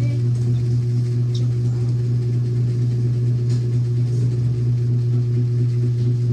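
A steady low hum with a few fainter overtones above it, unchanging throughout, with a couple of faint light clicks.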